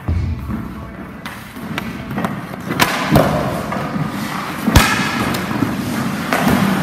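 Ice hockey shots on a goalie: a few sharp cracks of stick on puck and puck on pads, the loudest about five seconds in, over the scrape of skate blades on the ice.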